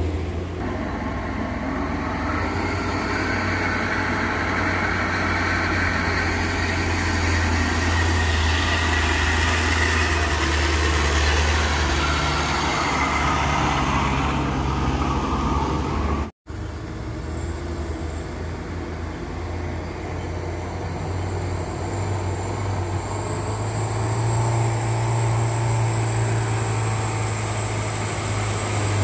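Truck engines pulling uphill as loaded cargo trucks pass close by, a steady low engine drone. The sound cuts out for an instant about halfway through, and another truck's engine grows louder near the end.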